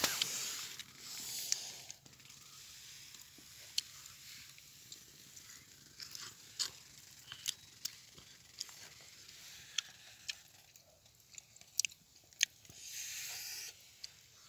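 A person chewing grilled meat close to the microphone, with short sharp crunches every second or so and two brief breathy hisses.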